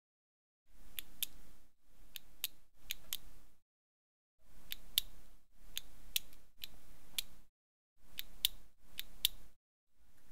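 Clockwork wind-up mechanism being wound: a series of short key turns, each with two or three sharp ratchet clicks, in three sets separated by brief pauses.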